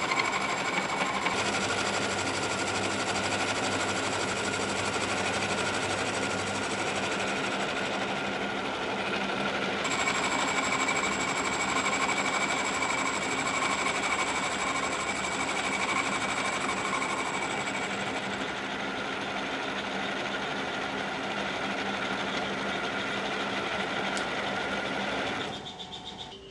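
Kearney & Trecker 2HL milling machine with its universal head running a solid carbide end mill across cast iron pads: a steady mechanical din with several steady tones held through it. It stops near the end.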